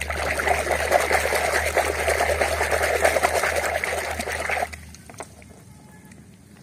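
A hand swishes and scrubs a mud-covered toy underwater in a plastic tub, making steady churning splashes that stop after about four and a half seconds.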